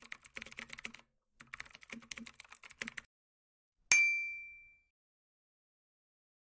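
Two quick runs of rapid key clicks like typing, then a single bright bell ding about four seconds in that rings out in under a second.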